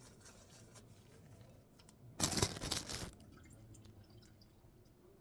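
Kitchen handling noise: light clicks and taps, with one loud rough rasping noise about two seconds in that lasts about a second.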